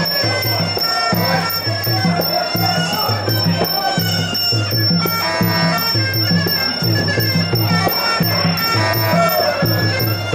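Sarama, the traditional Muay Thai fight music: a wailing pi java oboe carrying the melody over a steady beat of klong khaek drums, with cymbals.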